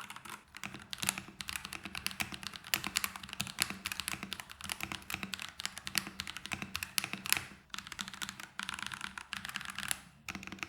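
Fast typing on a Redragon K617 Fizz 60% mechanical keyboard modded with Akko Lavender Purple tactile switches, foam, a tape mod and lubed stabilizers. It is a dense run of keystrokes with a short break near the end.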